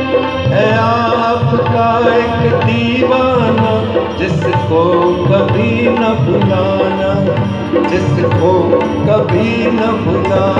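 Indian devotional bhajan music played live, with tabla and dholak keeping a steady rhythm under a violin and keyboard melody.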